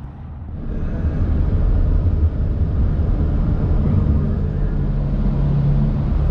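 A car driving: a steady low road and engine rumble that comes up about half a second in and holds.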